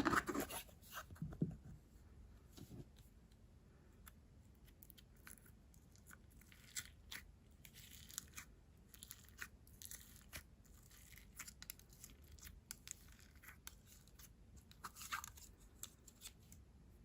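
Slime being handled by hand: faint sticky crackles, clicks and small pops, a few louder ones in the first second or two.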